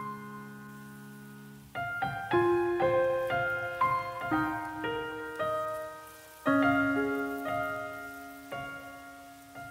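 Background piano music. A held chord fades away, then from about two seconds in a slow melody of single struck notes plays, with a new chord coming in at about six and a half seconds.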